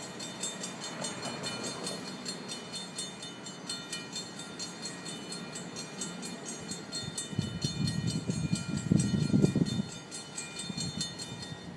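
Railroad grade-crossing warning bell ringing rapidly and evenly, then cutting off abruptly near the end. Under it, an approaching train's low rumble swells, loudest about eight to ten seconds in.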